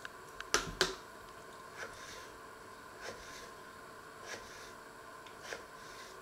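Small kitchen knife cutting a raw peeled potato into wedges over a wooden cutting board. Two sharp knocks come about half a second in, then a soft cut roughly every second.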